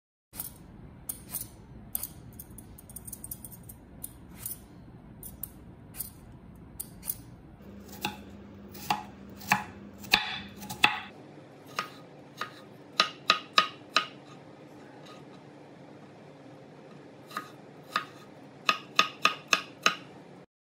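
Chef's knife cutting a peeled apple on a wooden cutting board: crisp knocks of the blade through the apple onto the board. They are spaced out at first, then come as a quick run of chops near the end as the apple is diced.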